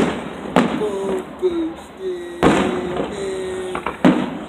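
Aerial firework shells bursting: about four loud booms, each followed by a rolling echo.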